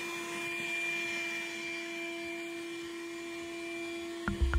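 Vacuum cleaner running steadily with an even, unchanging whine, sucking up fiberglass and epoxy grinding dust. Music with a beat comes in suddenly near the end.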